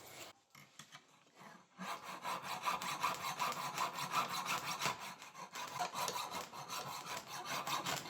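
Hacksaw cutting through the metal shank of a ratchet screwdriver in quick back-and-forth strokes, starting about two seconds in.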